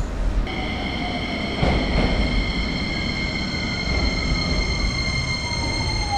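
Electric commuter train slowing into the station: a high, steady squeal of several tones starts abruptly about half a second in over the low rumble of the wheels, and a whine falls steadily in pitch through the second half as the train slows.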